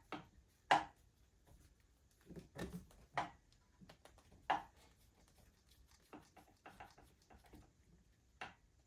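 Spark plug wires being seated on a Honda GL1200 ignition coil and the coil handled on a workbench: scattered light clicks and taps, the sharpest three at about three-quarters of a second, three seconds and four and a half seconds in.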